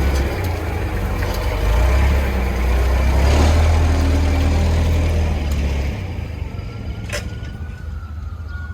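Vehicle driving, with a heavy low engine and road rumble that eases off about six seconds in as it slows down.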